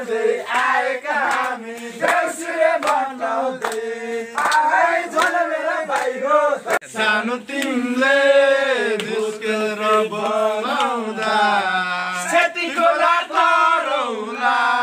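A group of young men chanting and singing a Deusi song, the Nepali Tihar festival song, with long held notes.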